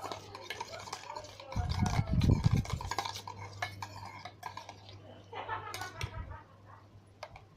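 Spoon stirring a watery slime mixture of lotion and dish soap, clicking and scraping against the container. A loud low rumble about a second and a half in lasts around a second and a half.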